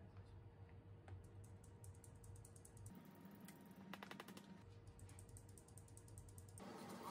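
Faint, rapid clicking and ticking of a metal mesh sieve being tapped and shaken to sift powder into a stainless steel bowl, in several runs with a dense flurry about four seconds in.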